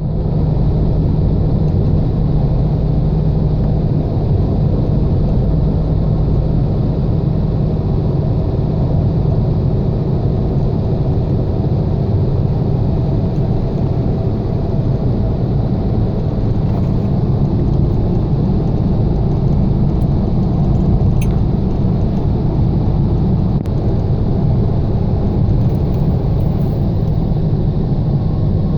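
Car driving along, with a steady rumble of engine and road noise.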